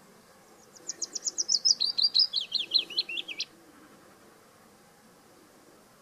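Willow warbler singing one song phrase: a run of quick, sweet notes that falls steadily in pitch, lasting about three seconds and starting about half a second in.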